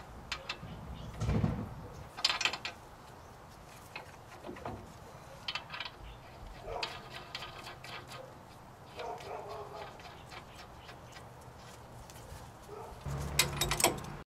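Hand work on a pickup's front steering knuckle and tie rod: scattered sharp metal clicks and clinks of parts and tools. Near the end a louder low buzz comes in with a cluster of clicks.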